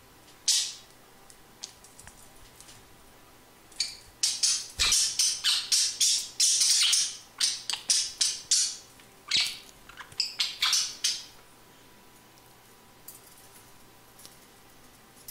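Budgerigars squawking: one harsh call about half a second in, then a rapid run of short, harsh squawks lasting about seven seconds, as in a squabble over food.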